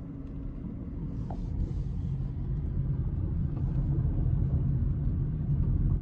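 Car driving, heard from inside the cabin: a steady low road and engine rumble that grows louder as it goes.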